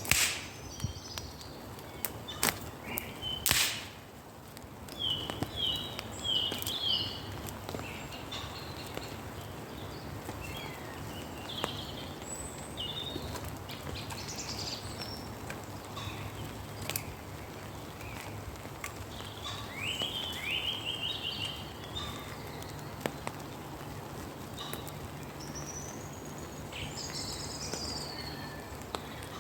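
Several woodland birds singing, with repeated chirps and short trills, over a steady background of rain in the woods. A few sharp knocks come in the first few seconds.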